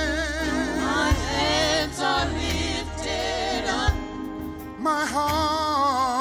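Gospel music: a singer's voice with strong vibrato over a band with a steady bass line and occasional drum hits.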